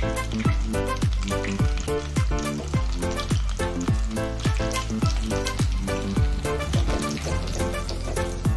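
Background music with a steady beat of about two drum hits a second. Under it, hot oil sizzles as breadcrumbed sausage rolls deep-fry.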